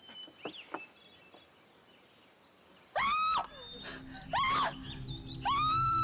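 Quiet woodland with a few faint bird chirps, then about three seconds in, three loud, high-pitched cries of 'help!', each rising and falling over about half a second. A low held music chord sets in under the cries.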